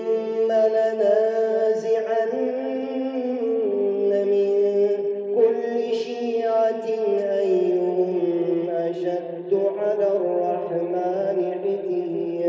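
A man chanting the Quran in melodic tajwid style: one long unbroken phrase of held notes with ornamented turns in pitch, without a pause for breath.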